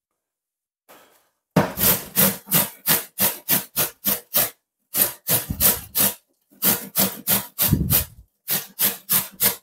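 Carrot grated on a stainless steel box grater: rhythmic rasping strokes, about three a second, beginning about a second and a half in and broken by a few short pauses.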